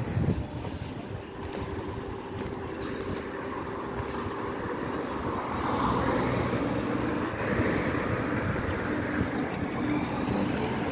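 MAZ 303.E10 electric bus standing at a stop, humming steadily with a few held tones, over the noise of street traffic. The hum grows a little louder about six seconds in.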